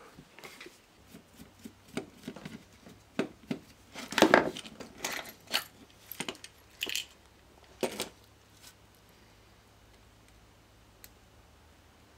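An RCD's plastic housing and small internal parts being pried and pulled apart by hand: a run of small clicks, snaps and rattles, loudest about four seconds in.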